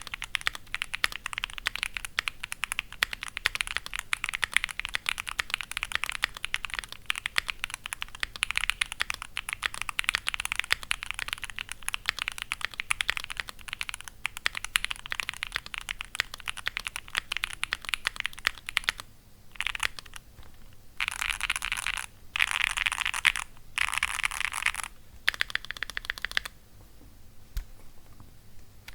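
Typing on a foam- and tape-modded Bakeneko65 mechanical keyboard with a carbon-fibre plate, Gateron Baby Kangaroo tactile switches and GMK keycaps: fast, continuous key clacks. About two-thirds of the way in, the typing breaks into several short bursts separated by pauses, and it goes quieter near the end.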